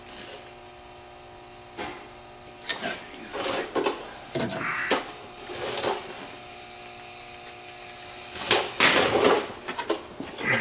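Scattered knocks, clinks and short scrapes of tools and parts being handled, the loudest a longer scrape near the end, over a steady hum.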